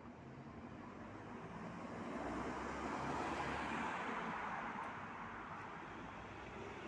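A vehicle passing by: a steady rushing noise that swells to a peak about three seconds in, then fades.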